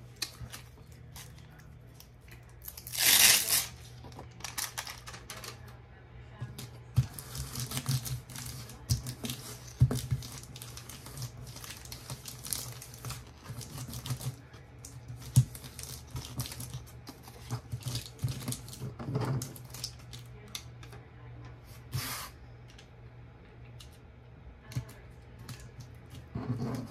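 Irregular small clicks, taps and rattles of rhinestones and clear plastic storage boxes being handled on a craft table, with a louder rattle about three seconds in and two shorter ones later.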